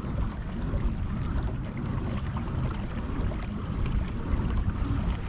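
Steady wind rumble on the microphone with water moving against a kayak hull.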